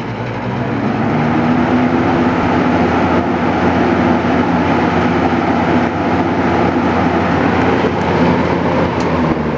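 Edison Comfort Fan variable-speed box fan, model 204016, spinning back up to high speed. The rush of air from the blades grows over the first second or two, then runs steady over a low motor hum.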